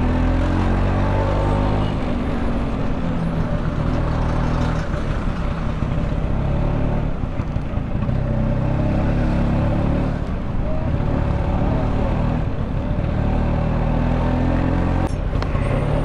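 Vespa-style scooter engine running at low speed in slow, heavy traffic, over the steady noise of the cars and trucks around it.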